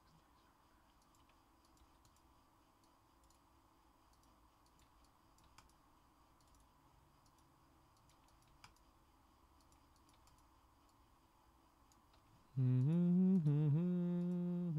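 Faint computer keyboard and mouse clicks. About twelve and a half seconds in, a man starts humming a tune, much louder than the clicks, holding notes and sliding between them.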